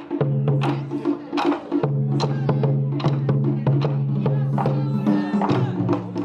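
Japanese taiko drums beaten with wooden bachi sticks in a fast ensemble rhythm: sharp strikes several times a second over a steady low humming tone.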